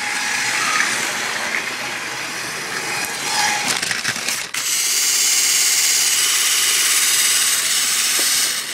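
Motorized Lego train running, a steady mechanical whirr and rattle that gets louder about halfway through and cuts off suddenly at the end.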